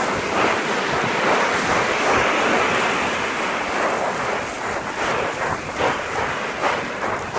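A board sliding fast down loose volcanic gravel: a steady rushing, gritty hiss, mixed with wind on the microphone. In the second half, sharper short scrapes stand out.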